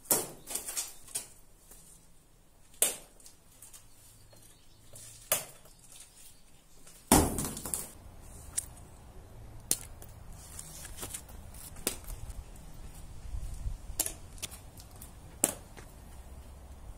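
Scattered sharp clicks and knocks, with a louder knock about seven seconds in. After that a low wind rumble on the microphone runs under the clicks.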